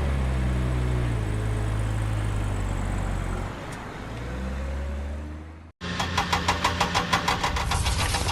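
Tractor engine running, its pitch rising, holding, then dipping and rising again before it cuts off abruptly. It is followed by a fast, even clatter of about seven strokes a second.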